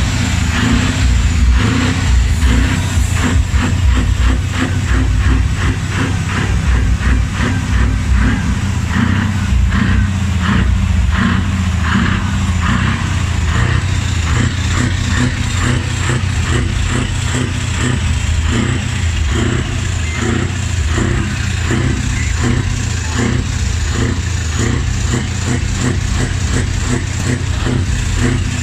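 Heavy truck engines running with a steady low rumble.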